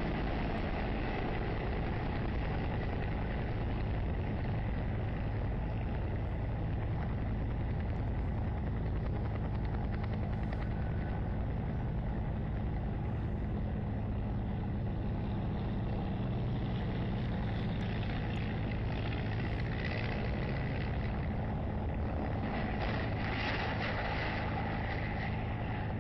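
Steady drone of a helicopter's rotor and engine, with a rougher, louder rush of noise for a few seconds near the end.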